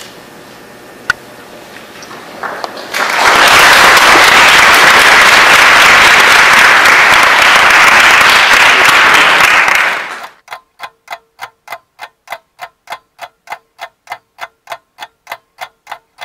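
Audience applauding for about seven seconds and stopping fairly suddenly. It is followed by a steady, fast ticking of about four ticks a second.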